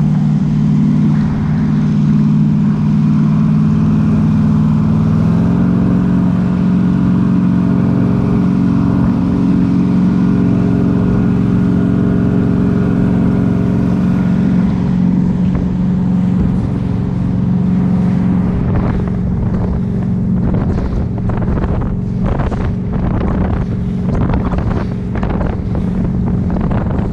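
Jet boat's engine running steadily at speed, with the rush of its water jet and the water. Its note steps up slightly about five seconds in, and in the second half the rush turns choppy and uneven.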